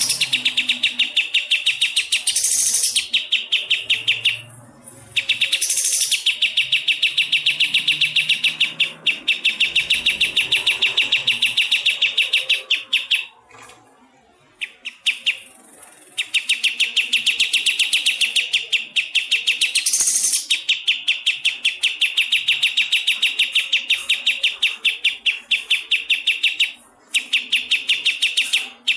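Pied triller (kapas tembak) giving its 'besetan' call: long runs of rapidly repeated high notes, about five a second, broken by brief pauses.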